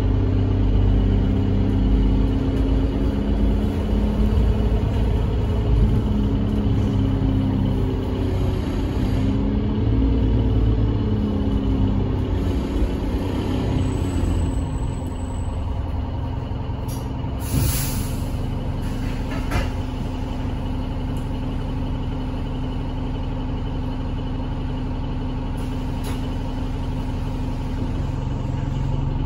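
Alexander Dennis Enviro300 single-deck bus heard from inside the passenger saloon: the diesel engine drones under way, rising and falling in pitch through the gear changes for the first dozen seconds, then settles to a steadier, lower run. A short hiss of air from the bus's air system comes a little past the middle.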